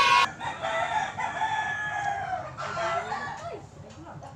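Rooster crowing: a loud, long crow cuts off just after the start, followed by fainter crowing and clucking from chickens.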